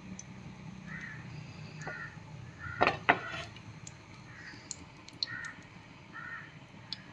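Crows cawing, short harsh calls repeating about once a second, with two louder sharp sounds close together about three seconds in.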